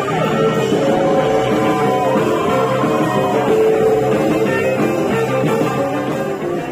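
Live rockabilly band playing an instrumental passage, with a hollow-body electric guitar to the fore over drums.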